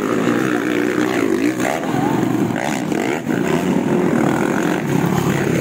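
Motocross dirt bike engine revving, its pitch rising and falling as the throttle is worked.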